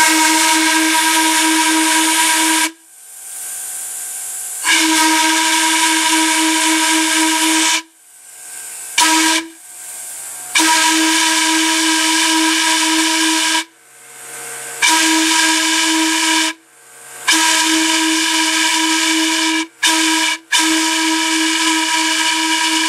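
A vintage Chautauqua Traction trolley car whistle blown on compressed air from a shop air compressor. It gives one steady, single-pitched hooting blast at a time, with air hiss. It sounds the railroad grade-crossing signal of long, long, short, long twice in a row. In the pauses between blasts a low compressor hum is left.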